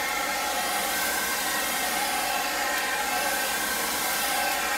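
Handheld hair dryer running steadily on high: a constant rush of air with a faint whine from its motor.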